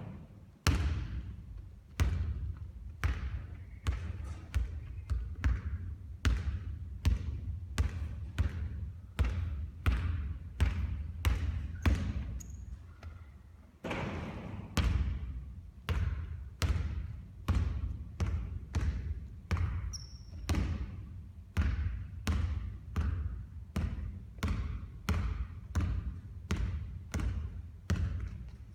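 Basketball bouncing on a court, sharp thuds coming about twice a second, with a few louder bangs among them.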